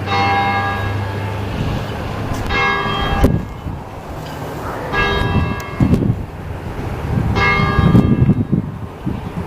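Whelen 4004 electronic outdoor warning siren sounding a test signal: about one-second blasts of a rich, many-toned sound, repeating roughly every two and a half seconds, over a low rumble.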